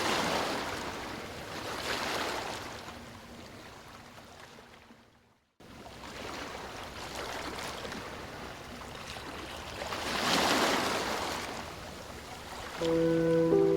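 Ocean surf washing onto a beach, swelling and ebbing, with surges near the start, about two seconds in and around ten seconds in. The sound fades to silence for a moment about five and a half seconds in, then comes back.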